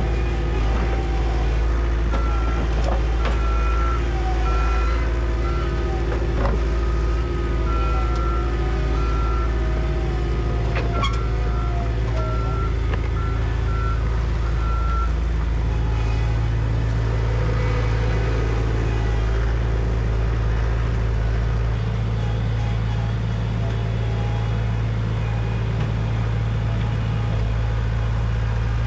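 Heavy construction machinery's engine running steadily, with a reversing alarm sounding in runs of short beeps through the first half, and a few sharp knocks of concrete debris.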